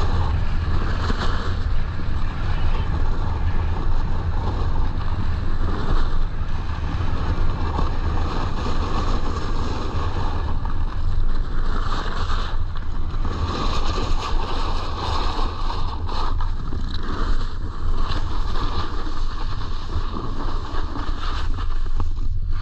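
Wind buffeting an action camera's microphone as a steady low rumble, with the uneven hiss and scrape of a snowboard sliding over packed, chopped-up snow during a run down the slope.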